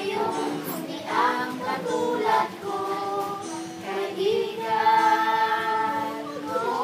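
A group of children singing a song together, with a long held note near the end.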